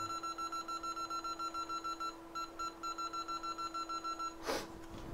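Rapid train of short electronic beeps, about six a second, breaking off briefly about two seconds in and then resuming, over a steady hum. A short rush of noise comes near the end.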